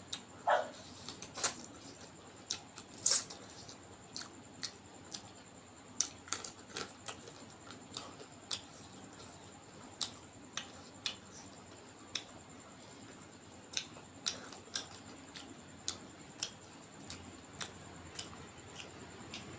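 Close-up eating sounds: chewing and lip-smacking with irregular sharp wet mouth clicks, one to three a second, and a brief squeak near the start.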